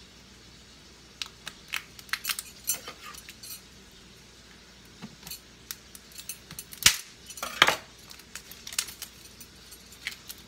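Plastic condiment bottles and their caps handled with gloved hands: scattered clicks and taps of caps and bottles knocking on the countertop, with two louder knocks a little past the middle.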